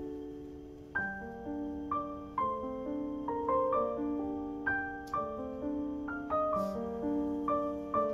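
Slow, gentle solo piano background music, single notes and chords struck and left to fade.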